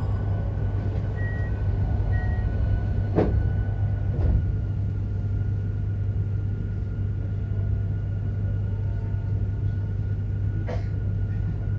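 JR Hokkaido 731-series electric train running, heard inside motor car MoHa 731-109: a steady low roar from the traction motor on one bogie, an abnormal noise that sounds like an old nose-suspended (tsurikake) drive, with a steady whine above it. Three short sharp knocks come through, about 3 s in, about 4 s in, and near the end.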